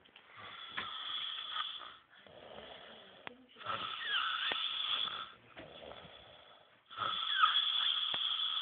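A man snoring loudly in deep sleep: three long snores about three seconds apart, with a whistling edge, and softer breaths out between them.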